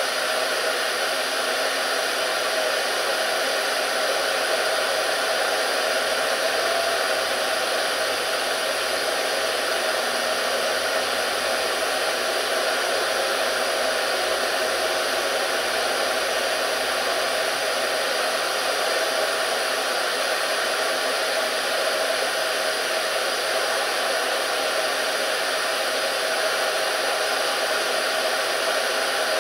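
Steady rushing noise, even and unchanging throughout.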